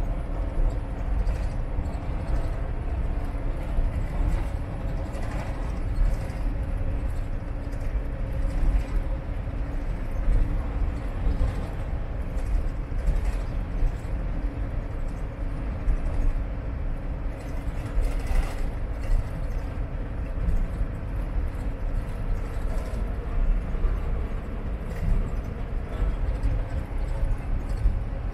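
Semi-truck cruising at highway speed, heard from inside the cab: a steady low engine drone and road rumble, with irregular small knocks and rattles.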